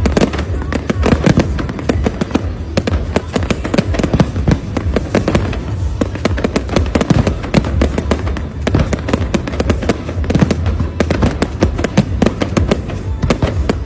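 Fireworks going off in a dense, continuous barrage of bangs and crackles, many every second.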